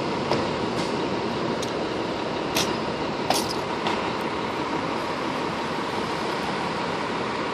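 Steady running noise of a fire engine's diesel idling in the firehouse bay, with a faint steady whine and a few short clicks and knocks.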